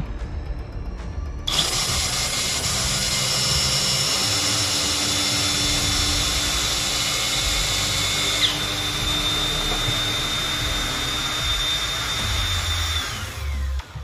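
A power tool's motor starts suddenly, runs at a steady high whine, then winds down near the end.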